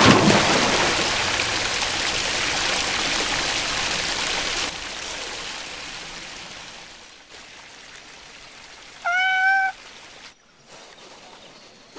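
A rush of water noise for the first few seconds that fades away, then a single short cat meow about nine seconds in.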